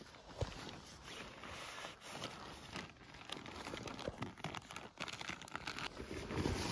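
Soft, irregular crinkling and rustling of fabric or gear handled close to the microphone, with scattered small crackles.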